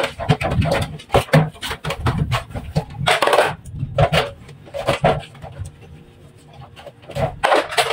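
Ceramic plates and a stainless steel basin clattering and knocking as dishes are washed and stacked by hand, with short stretches of sponge scrubbing. The knocks come irregularly, several a second at times.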